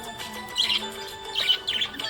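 Budgie chirping: one short, high chirp about half a second in, then a quick run of three chirps near the end, over background music.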